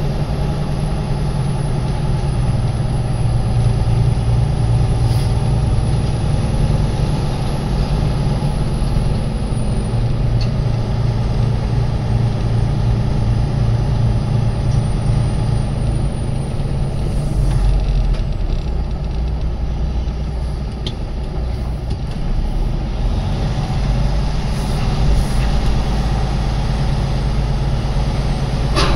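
Heavy truck's diesel engine running steadily, a deep drone heard from inside the cab as the truck rolls slowly, with a few sharp clicks right at the end.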